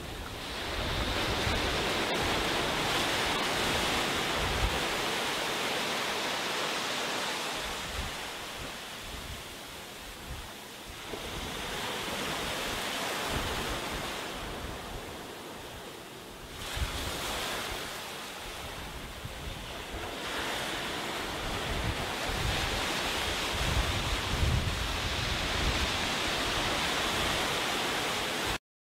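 Small waves breaking and washing up a sandy beach, the rush of surf swelling and ebbing. Wind buffets the microphone underneath.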